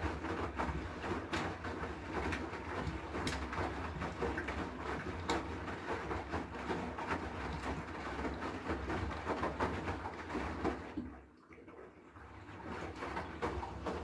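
Haier I-Pro Series 7 front-loading washing machine tumbling laundry in water in its wash phase: a steady motor hum under repeated sloshing and splashing as clothes drop in the drum. About 11 seconds in the drum stops and the sound falls away for about a second before the tumbling starts again.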